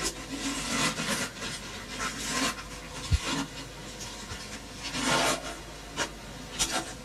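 Rustling and scraping as smoothie ingredients are handled and put into a blender bottle, in short bouts, with a few light knocks.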